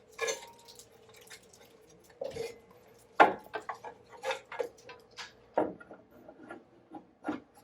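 Irregular clicks, taps and light knocks of wire connectors and cable bundles being handled and tucked into a 3D printer's electronics enclosure, the loudest knock a little over three seconds in.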